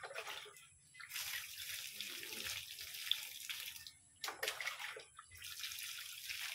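Water poured from a small plastic pot onto potting soil, splashing in three spells with short breaks, the pot refilled from a bucket between pours.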